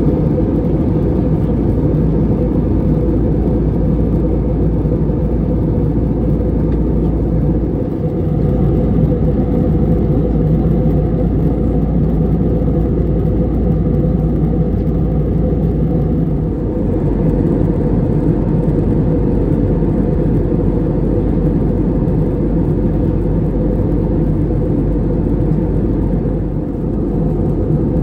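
Cabin noise of an Airbus A320-214 in flight: a steady low roar of its CFM56 engines and the airflow past the fuselage.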